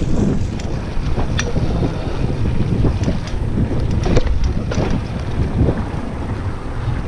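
Wind buffeting the microphone of a camera worn by a cyclist riding a mountain bike, a steady low rumble with scattered short clicks and rattles.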